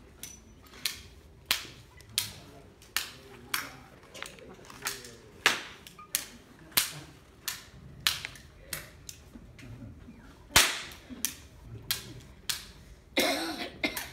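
Sharp percussive clicks in a steady beat, about three every two seconds, tapped out by members of the ensemble. Near the end a sustained pitched instrument note comes in.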